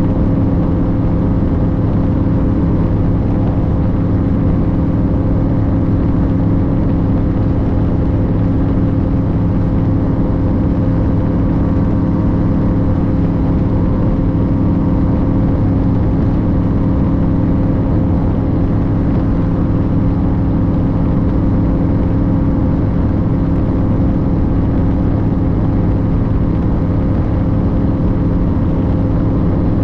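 Engine running at a constant speed, giving a loud, steady drone with a fixed pitch.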